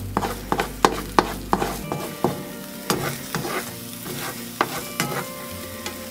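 Beaten egg sizzling in oil in a non-stick frying pan, with repeated clicks and scrapes of a plastic slotted spatula against the pan as the setting egg is lifted and pushed aside so raw egg runs underneath. The clicks come close together for about the first two seconds, then more sparsely.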